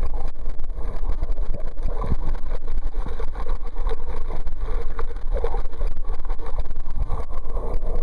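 Muffled underwater rumble of seawater moving against a submerged camera's microphone, steady and loud with no clear events.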